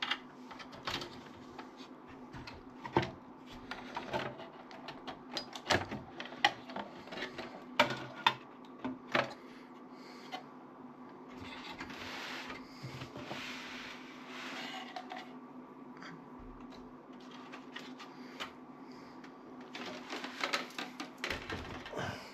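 Irregular clicks, taps and clatter of hands working on desktop computer parts during disassembly, over a faint steady hum.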